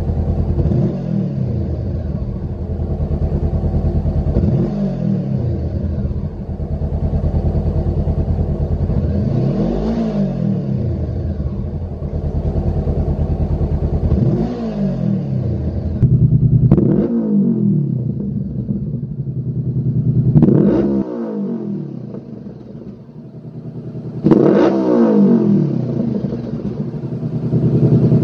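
Honda CBR500R's 471 cc parallel-twin engine through its stock exhaust, idling and blipped about seven times, each rev rising and falling back in pitch, the later revs going higher.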